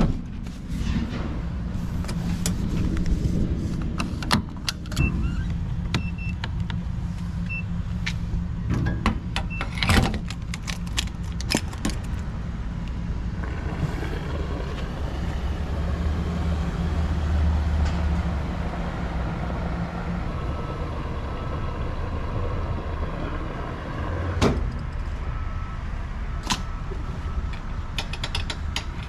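Refuelling at a gas pump: clicks and knocks as the fuel door and nozzle are handled, a few short beeps from the pump, then a steady rush of fuel flowing into the Toyota Sienna's tank, ending in a sharp click.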